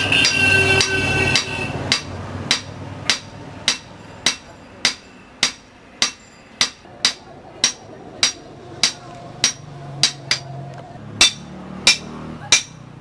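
Hand hammer forging a red-hot iron blade on an anvil made from a length of railway rail. It opens with a quick run of ringing blows, then settles into single blows at an even pace, about one every 0.6 s.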